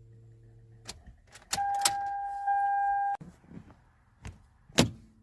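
A steady electronic warning tone from the 2005 Toyota Sienna sounds for about a second and a half, after a faint hum and a click, and is followed by a few clicks and one sharp clack near the end.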